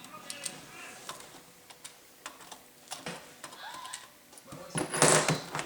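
Light, scattered clicks and taps of a laptop's plastic casing and parts being handled as its optical drive is removed, then a louder rasping noise near the end.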